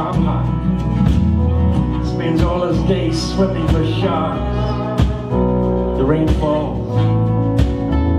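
Live folk-country band playing an instrumental passage with drums, bass and guitars.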